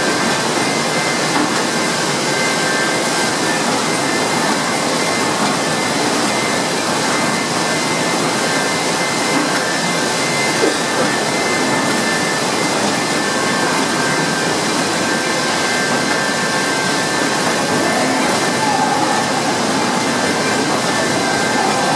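Horizontal flow-wrapping machine on a packaging line running: a loud, steady mechanical noise with a couple of faint steady high whines above it.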